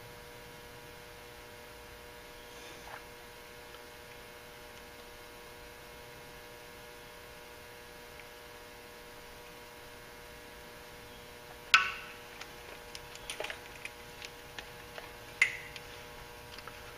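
Steady electrical hum, and from about twelve seconds in, a sharp click followed by scattered small clicks and taps as voltmeter test probes are handled and worked into an ABS wheel-speed sensor connector.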